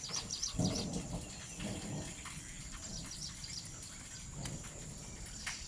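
Small birds chirping: a quick run of high chirps right at the start and a few more near the end, over a steady faint high-pitched whine, with scattered low muffled rustling in between.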